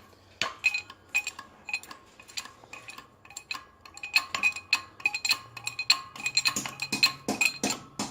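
Irregular metallic clinks and ticks, each with a short ringing note, from the press, steel plate and blocks as a differential carrier bearing race is slowly pressed down. The clinks come a few per second and grow busier about halfway through.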